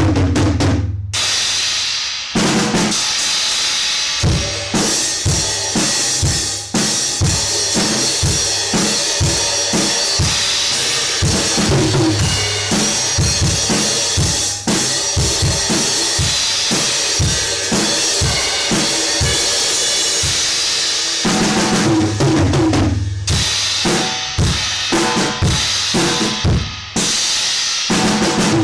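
Acoustic drum kit played hard as a first sound test of a new Paiste PSTX 16-inch Swiss thin crash: loud ringing crashes with kick drum at the start and over the last several seconds, and a long stretch of quick kick and snare strokes under constant cymbal wash in between.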